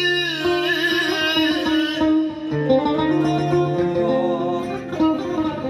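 Arabic folk music: an instrumental passage between sung lines, a plucked string instrument playing over steady held notes, with a low sustained bass note that shifts pitch about two and a half seconds in and again near four seconds.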